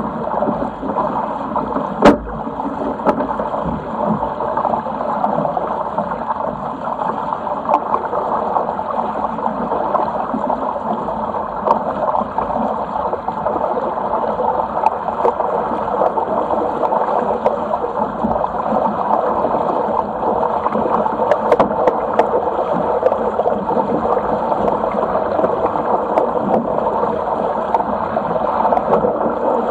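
Water rushing along the hull of a Sigma 8 metre racing cruiser under sail, a steady wash, with a single sharp knock about two seconds in.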